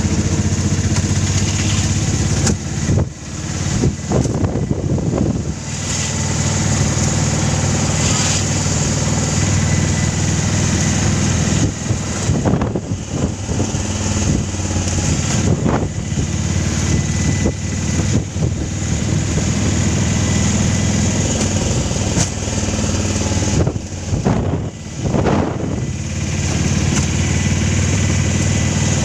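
A vehicle engine running steadily, a low hum under a constant rushing noise, with a few brief dips.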